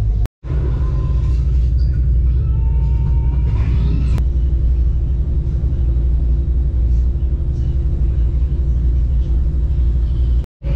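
Steady low rumble of a passenger ferry's engines under way, heard inside the cabin, with a steady hum over it. The sound drops out briefly near the start and again near the end.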